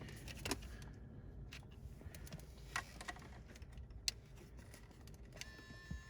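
Scattered faint clicks and taps of plastic connector plugs and wiring being handled and pushed into the back of a BMW Business CD head unit. A faint steady high tone starts near the end.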